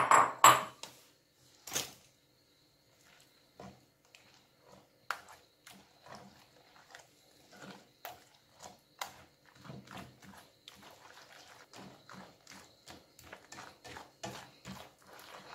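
Hand mixing a wet batter with chopped almonds in a glazed clay bowl: irregular wet squelches and knocks of fingers against the bowl, coming faster in the second half. A few sharp knocks right at the start are the loudest.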